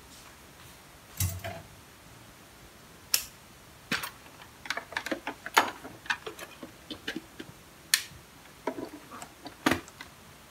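Irregular light clicks and knocks of kitchen items and containers being handled and set down close by, in a quick clattering run in the middle.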